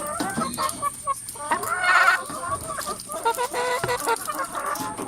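A flock of hens in a coop clucking and calling over one another, with a louder squawking call about two seconds in.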